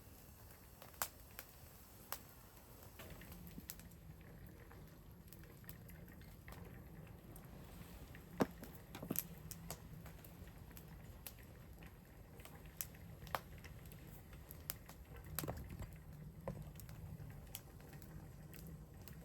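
Wood fire crackling in a fire pit: irregular sharp pops and snaps over a faint steady hiss.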